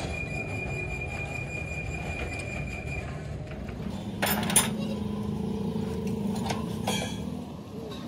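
A few metallic clinks of a spanner working on tractor bolts, over steady workshop background noise. A low steady hum sets in about three seconds in.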